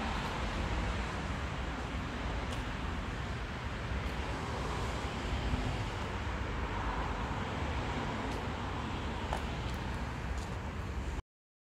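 Steady outdoor background noise, a low rumble with a few faint clicks, cutting off abruptly near the end.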